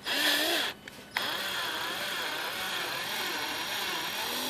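Power drill turning a screw extractor to back out a broken water-pump bolt. A short burst of the motor, a brief pause, then the motor runs steadily with a wavering whine as the bolt turns out.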